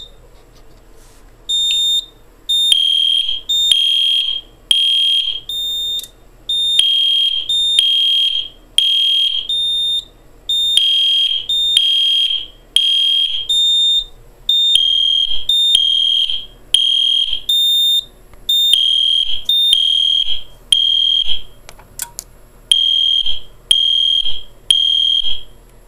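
EST Genesis horn strobe sounding the temporal-3 evacuation pattern: three short horn blasts and a pause, repeating, because a pull station has put the fire alarm panel into alarm. Shorter, higher beeps sound between the blasts. The horn cuts off near the end when the signals are silenced.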